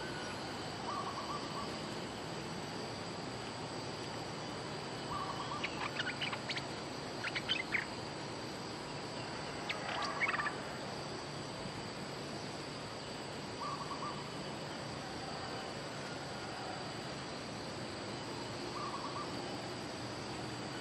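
Bulbuls calling: bursts of sharp, chattering notes about six to eight seconds in and again near ten seconds, with short, softer single notes recurring every few seconds. A steady high insect drone runs underneath.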